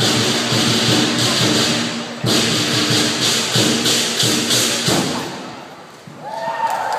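Lion dance percussion, a big drum beating with crashing cymbals, playing a fast steady rhythm that stops about five seconds in and rings away. Crowd voices start to rise near the end.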